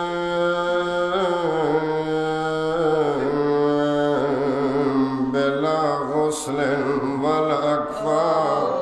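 A man's voice chanting an Arabic invocation of salutations on Imam Husayn in slow, drawn-out melodic notes. He holds one steady note for about a second, then the melody winds up and down through long held notes.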